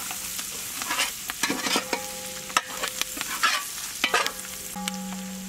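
Curry leaves, cumin and black pepper sizzling as they fry in ghee in a steel pan, a tempering (tadka). A metal spatula stirs them, scraping against the pan at irregular moments.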